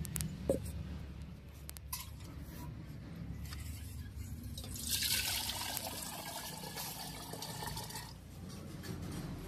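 Liquid poured from a steel pitcher into a metal cooking pot, a hissing pour from about halfway through that lasts some three seconds, with a few clatters and handling knocks before it.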